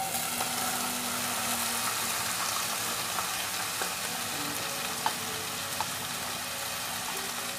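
Chopped banana stem tipped into hot coconut oil and mustard seeds in a pan, sizzling. The hiss starts suddenly as the pieces go in and holds steady, with a few small clicks.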